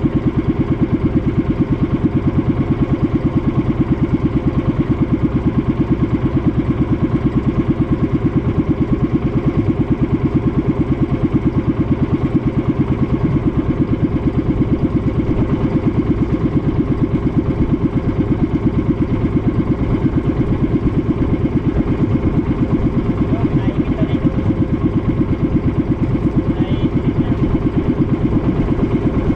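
Small fishing boat's engine running steadily at constant speed, a fast even chugging that does not change.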